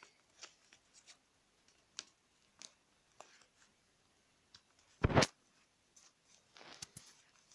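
Sheet of paper being handled and folded, with soft rustles and small crackles. There is a brief, much louder thump about five seconds in, and a short burst of rustling near the end.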